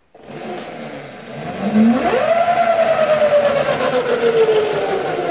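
The mini moto pit bike's 36-volt electric motor and drivetrain spinning up with the wheel free. The whine climbs sharply about two seconds in, then slowly falls, showing the newly fitted power switch now works.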